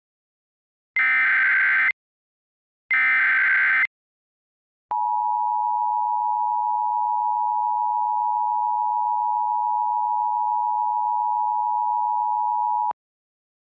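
Two one-second bursts of EAS SAME header data tones, a second apart, from a Sage Digital ENDEC, followed by the two-tone EAS attention signal held steady for about eight seconds and then cutting off.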